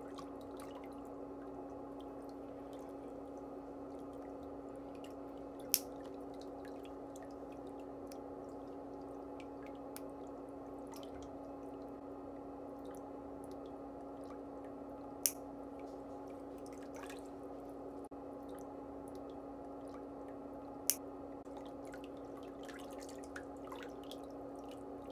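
Stainless-steel nail nippers snipping through a thick toenail: three sharp clicks several seconds apart, with fainter ticks between, over a steady low hum.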